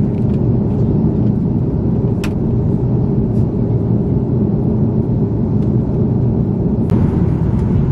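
Steady low drone of an Airbus A330-300 airliner in flight, engine and airflow noise heard inside the cabin at a window seat. Two light clicks, one about two seconds in and one near the end.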